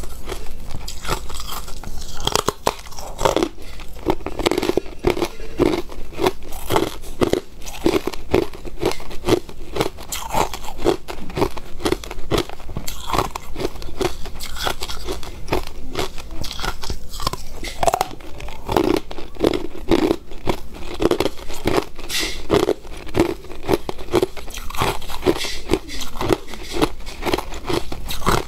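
Hard clear ice being bitten and chewed, a dense run of sharp cracks and crunches as the chunks break between the teeth.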